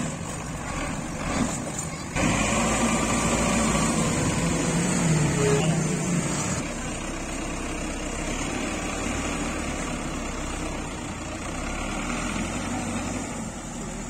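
Farm tractor's diesel engine running, revved up suddenly about two seconds in and held at higher revs for a few seconds, then settling back to a steadier, lower run as the tractor works the tipping trailer.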